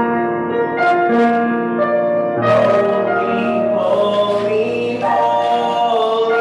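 Piano playing slow music with long held notes; the sound grows fuller about halfway through.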